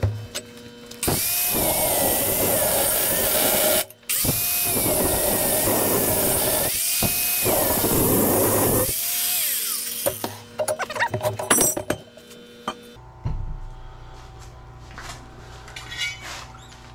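Angle grinder cutting through square steel tubing, its motor whine dipping and wavering under load. The cutting stops for a moment about four seconds in and carries on until about ten seconds in, followed by a few sharp metal knocks.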